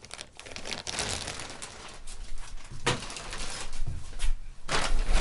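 Rustling and handling noise from sewing-machine accessories being sorted through by hand, with crinkling packaging and small clicks and knocks of bobbins and parts, one sharp click about three seconds in.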